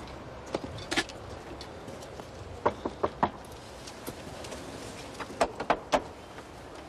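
Knocking on a heavy, iron-studded wooden door: a couple of single knocks, then three quick knocks just before 3 seconds in and four more about 5 to 6 seconds in.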